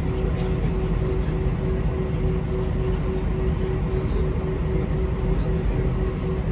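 Steady drone of an Airbus A321 airliner heard inside the cabin: engine and air-conditioning noise with a low rumble and a constant hum, holding even throughout.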